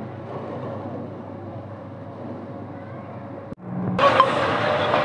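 Steady engine noise, with a faint steady tone, from a fire engine's pump working a hose as it sprays water. The sound breaks off sharply about three and a half seconds in and comes back louder and hissier.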